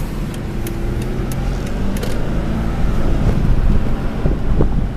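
Volkswagen Double Cab pickup driving, heard from inside the cab: a steady engine hum and road noise that grow louder as it picks up speed. A light ticking sounds during the first two seconds.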